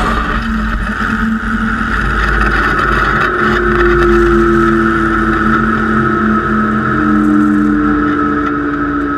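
Helicopter running on the ground with its rotor turning: a steady engine drone with a whine that drops slightly in pitch about seven seconds in.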